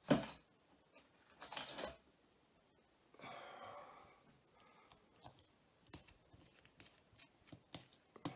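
A small screwdriver clicking and scraping on the tiny screws of a Lima Ringfield motor bogie as they are undone, with a sharp knock of handling just after the start and a string of light clicks in the second half.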